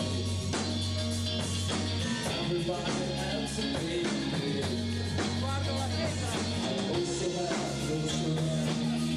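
Rock music with guitar, held bass notes and a steady drum beat.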